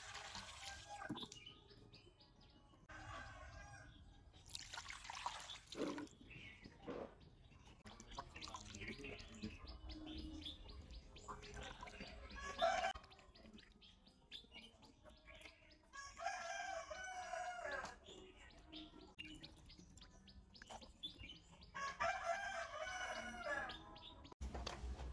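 A rooster crowing twice, about two-thirds of the way in and again near the end, with faint bird chirps between. There are occasional sharp knocks and clatter, the loudest about halfway through.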